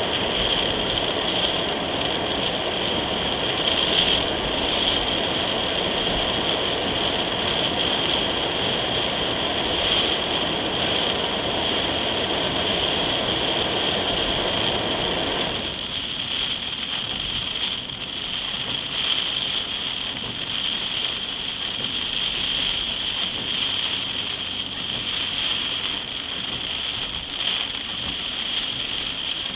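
Heavy rain falling on a car's roof and windshield, heard from inside the car as a steady hiss. A low rumble under it drops away suddenly about halfway through, leaving mostly the rain.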